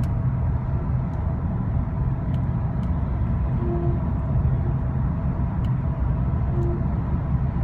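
Road and engine noise inside a 2010 Skoda Octavia 1.6 CR TDI four-cylinder common-rail diesel at motorway speed, with a faint steady high whine over it. This is the intermittent whine the owner hears above about 60 mph, its cause unknown.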